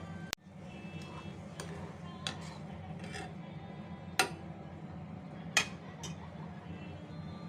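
A metal spoon clinks against a cooking pot about six times while tea ingredients are added and stirred; the two loudest strikes come about four and five and a half seconds in. A steady low hum runs underneath.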